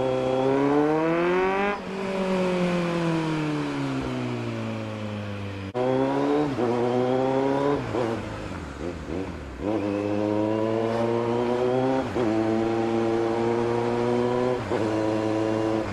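Kawasaki Z900's inline-four engine revving as the bike accelerates: the pitch climbs for about two seconds, then falls away for several seconds as the rider rolls off. The engine then pulls again, rising and holding, with a few brief dips between pulls.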